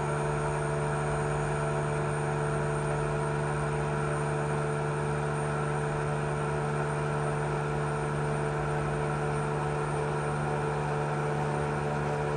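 Vacuum pump running steadily with an even hum. It is pulling down a sealed mixer vessel whose gauge reads about 0.08 and climbing.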